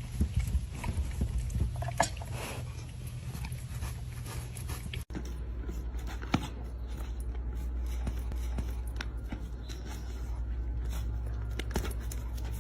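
A dog chewing and biting, with scattered short clicks and scrapes over a steady low hum.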